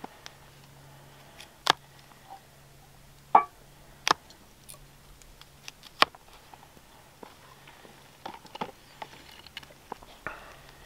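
Chef's knife slicing white button mushrooms on a thin plastic cutting board: irregular sharp taps of the blade hitting the board, a second or two apart.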